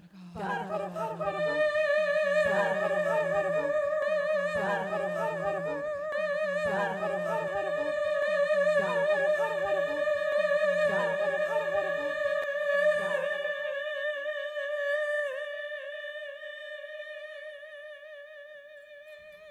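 Layered solo voice with live electronic looping: a looped vocal phrase repeating about every two seconds over a low hum, with a long held sung note with vibrato on top. The repeating phrase stops about thirteen seconds in and the held note fades out slowly.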